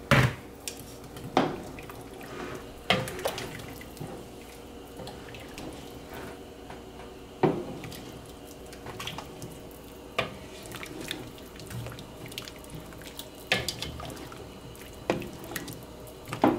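A wooden spoon stirring a pot of chicken soup, sloshing the broth with chunks of yam and potato and knocking irregularly against the pot's side, over a faint steady hum.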